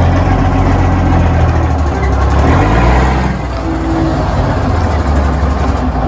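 Diesel engine of a heavy wrecker tow truck running, a loud, steady low exhaust rumble that eases slightly a little past halfway.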